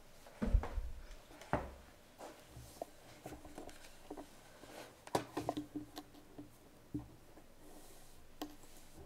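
Handling noise at a table with a desk microphone: two dull thumps in the first two seconds, then scattered clicks, small knocks and paper being shuffled.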